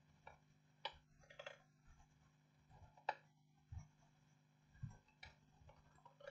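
Near silence with a handful of faint clicks as multimeter probe tips touch the pins of the laptop motherboard's keyboard connector, over a low steady hum.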